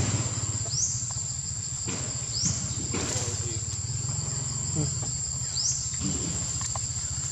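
Insects keep up a steady high-pitched drone, with a few short rising chirps over it. A low steady hum runs underneath, and there are a few soft rustles in the dry leaf litter.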